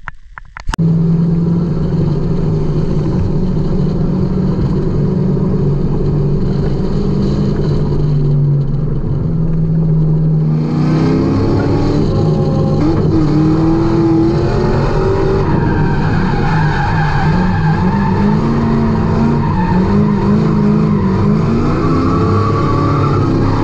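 Fox-body Mustang drift car's engine at a steady pitch for about the first ten seconds, then revving up and down again and again as the car drifts, with tire skid noise.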